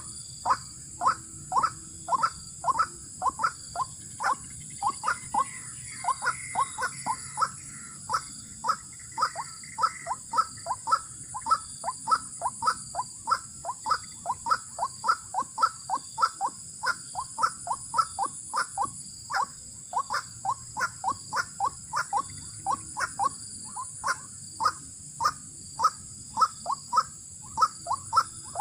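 White-breasted waterhen calling over and over, about two to three short notes a second, each note falling in pitch. Steady high insect buzzing runs underneath.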